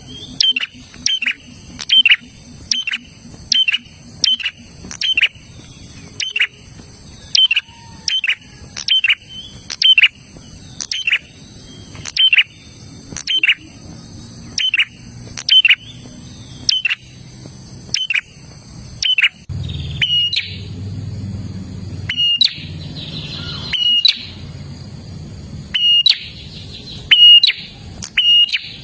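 Prinia (prenjak) calling: sharp, downward-sweeping chirps repeated about once a second, over a steady high-pitched ringing in the background. About two-thirds of the way in a low hum starts and the chirps come more sparsely.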